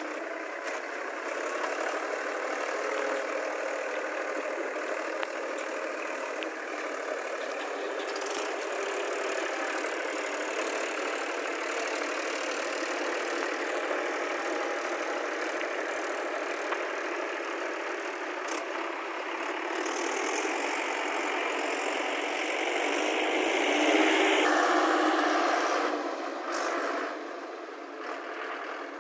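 Diesel tractor engine running under load as the tractor churns through deep mud. It swells louder about two-thirds of the way through, then drops back.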